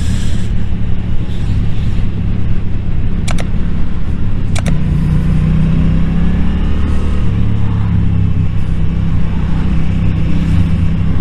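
Motorcycle engine running steadily at riding speed, with wind rush on the bike-mounted microphone. Two short sharp clicks come about a second and a half apart, near the middle.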